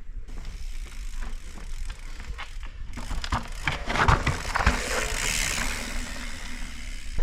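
Mountain bike riding fast down a rough dirt-and-rock trail: tyres crunching over the ground, and the bike rattling and knocking over bumps, with a louder rush of noise and a few hard knocks about halfway through.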